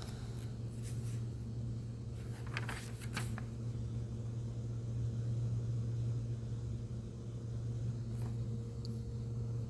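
Steady low machine hum of room background, with a few faint brief rustles about two and a half to three seconds in and again near the end.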